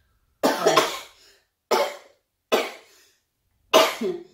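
A woman coughing four times in quick succession, about a second apart; the first cough is the longest.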